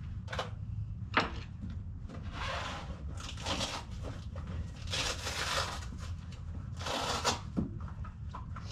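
Clicks and short rustling bursts of hands working on an RC model plane and its parts at a work table, over a steady low rumble.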